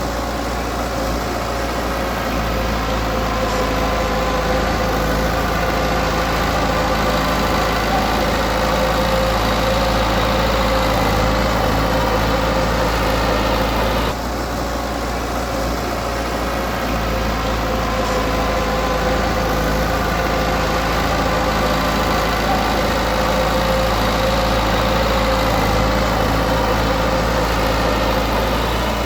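A heavy-equipment diesel engine running steadily, with an abrupt break in the sound about halfway through.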